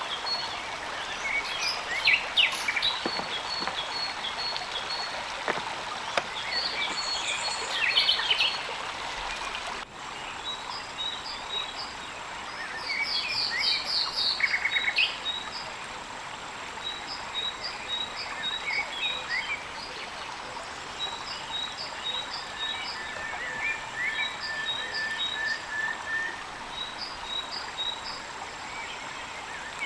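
Several birds chirping and calling in short repeated notes over a steady background hiss. The sound changes abruptly about a third of the way through, after which a faint steady high whine runs along with the chirps.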